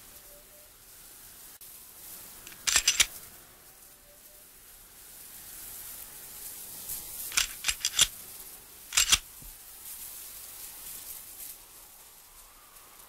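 Three short clusters of sharp clicks, two to four in each: the first about three seconds in, the other two close together a little past the middle, over a faint steady hiss.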